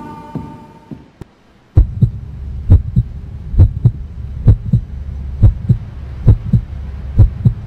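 Heartbeat sound effect: paired lub-dub thumps about once a second over a steady low hum, starting a little under two seconds in as a fading tone dies away.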